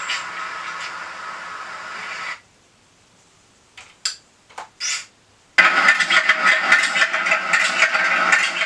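Video soundtracks played through bare, unenclosed speaker drivers driven by a Raspberry Pi DAC/amp, with too much treble and little bass. A steady noisy soundtrack cuts off about two seconds in. After a silent gap with a few short clicks, a loud, rough engine-like machinery sound starts abruptly about five and a half seconds in.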